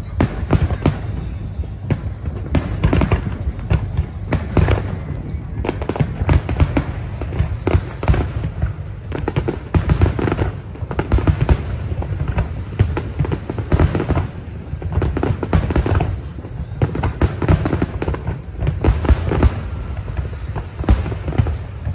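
Large fireworks display: aerial shells bursting in quick succession, a continuous barrage of bangs and crackles over a steady low rumble.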